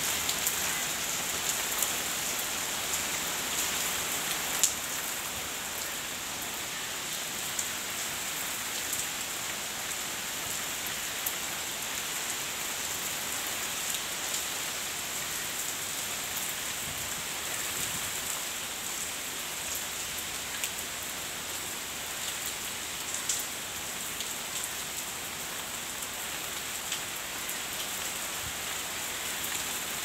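Heavy rain pouring steadily on foliage, with a few sharp ticks of drops close by.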